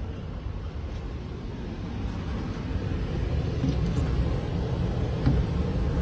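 Steady low rumble of a running air-conditioning air handler, growing gradually louder.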